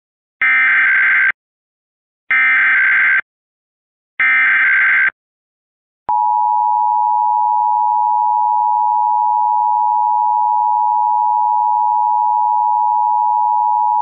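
Emergency Alert System SAME header: three short bursts of screeching digital data, each about a second long and a second apart. About six seconds in, the steady two-tone EAS attention signal (853 and 960 Hz) starts and holds for about eight seconds.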